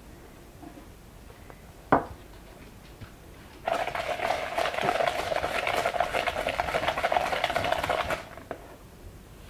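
Wire whisk beating egg yolks and sugar in a plastic mixing bowl: a fast run of scraping clicks that starts about three and a half seconds in and lasts about four seconds. A single knock comes about two seconds in.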